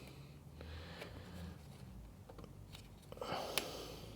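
Faint handling noises and small metallic clicks as a spring R clip is fitted into the rear brake caliper's pad retaining pin, with one sharper click about three and a half seconds in.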